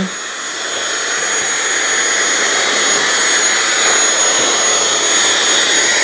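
Deenkee DV-888DC-HXW-2 cordless stick vacuum running in turbo mode: a steady high motor whine over rushing air as the floor head is pushed over carpet, sucking up debris.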